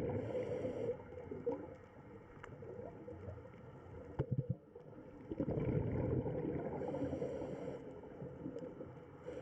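Water gurgling and bubbling with scattered clicks and pops, a few sharper knocks about four seconds in, and a louder bubbling stretch in the second half.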